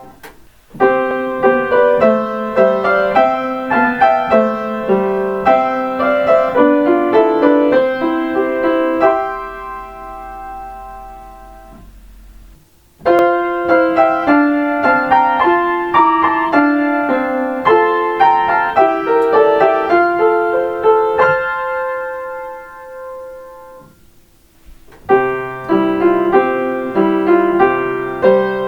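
Solo piano playing Kintetsu limited express onboard chime melodies: three short phrases, starting about a second in, at about 13 s and at about 25 s. Each phrase is left to ring out and fade before the next begins.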